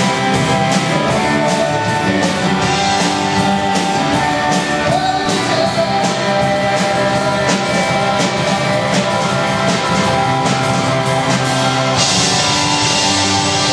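Rock music with guitar over a steady drum beat; about twelve seconds in, the cymbals get louder and brighter.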